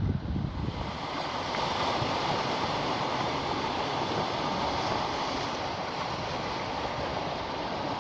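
Steady rush of water, an even hiss with no clear rise and fall of breaking waves. Wind buffets the microphone in the first half second.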